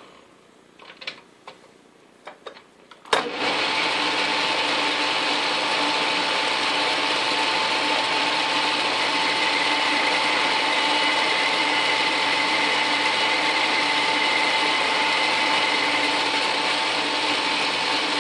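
A few light clicks from handling the stopped metal lathe, then a sharp click about three seconds in as the Atlas lathe's motor starts, and it runs steadily with an even hum and whine.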